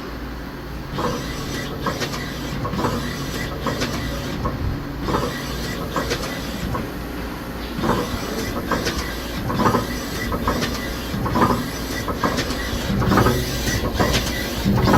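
X2 axis of a 2008 Star SR-32J Swiss-type CNC lathe traversing back and forth: a steady machine hum from the axis drive, with a low drive tone that comes and goes as the slide starts and stops. Over this run repeated, irregular clicks, the light clicking expected from the axis way cover and from behind the spindle.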